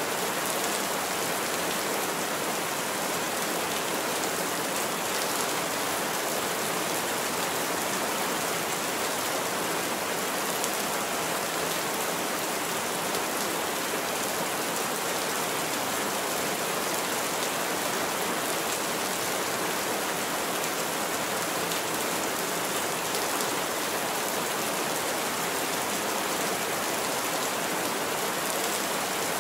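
Heavy rain falling steadily on a roof, an even, unbroken hiss with no thunder claps.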